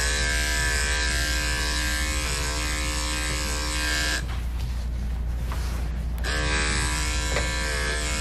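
Corded electric dog grooming clipper fitted with a 4 guard comb, buzzing steadily as it is run through a small dog's head and ear hair. For about two seconds in the middle the even hum breaks into a rougher, noisier buzz, then settles back.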